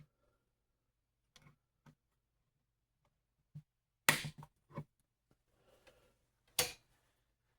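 A few scattered light clicks and knocks, with two louder sharp knocks about four and six and a half seconds in: small parts or tools being handled and set down on a workbench.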